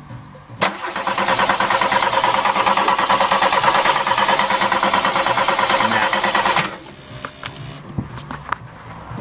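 VW Golf's starter motor cranking the petrol engine for about six seconds in a fast, even rhythm without it catching, then stopping. The engine won't fire because water in the spark plug leads and distributor is arcing out to the head.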